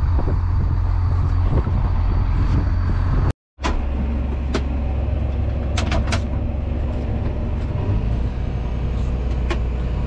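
A diesel engine running steadily, briefly cutting to silence about a third of the way in. Afterwards it is heard from inside a John Deere tractor's cab, with a few sharp clicks as a control lever beside the steering wheel is worked.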